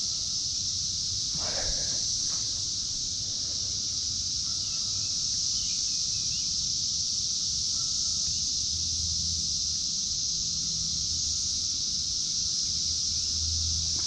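Chorus of periodical cicadas (Brood X): a steady, high-pitched drone that holds unchanged throughout.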